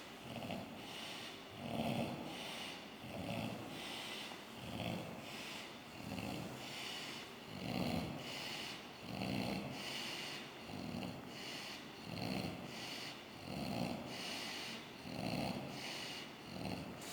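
A man in deep sleep snoring very loudly, one rasping snore about every second and a half in an even rhythm.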